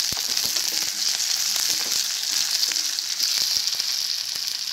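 Green chillies, ginger, garlic and onion sizzling as they sauté in hot oil in a stainless steel pan: a steady hiss, with a few clicks and scrapes from a spatula stirring them.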